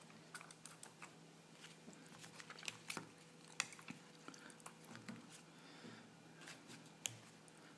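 Faint, scattered clicks and taps of small plastic connectors and wires being handled as an 11.1 V 3S lipo battery's balance plug is fitted to a cell voltage checker, over a low steady hum.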